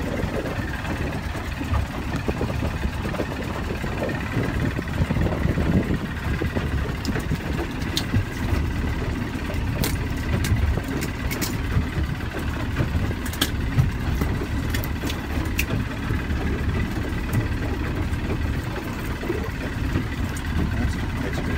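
Boat's engine running steadily at low speed, a low rumble heard from inside the hull. A few light clicks and taps sound over it.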